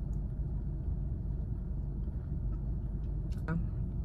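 Steady low rumble in a car's cabin, with a brief click near the end.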